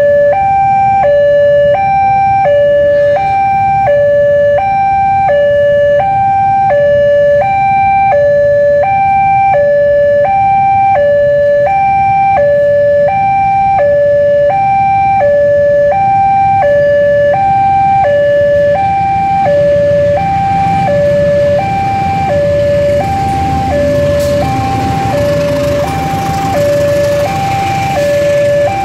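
Railway level-crossing warning alarm sounding a steady electronic two-note tone, high and low alternating without a break. From about two-thirds of the way through, the rumble and wheel noise of a passenger train grows under it as the train crosses.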